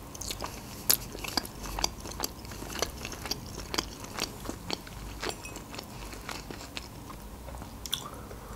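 Close-miked chewing of a mouthful of sauced sweet-and-sour fried chicken: wet smacks and small crunches at irregular intervals, about two or three a second.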